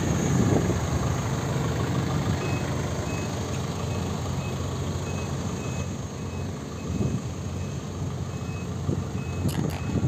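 Heavy machinery engine running with a steady low rumble, while a faint reversing or travel alarm beeps about twice a second from a couple of seconds in. A brief sharp click sounds near the end.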